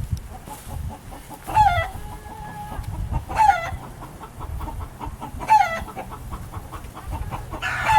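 Domestic chickens clucking: four short hen calls, each falling in pitch, about two seconds apart.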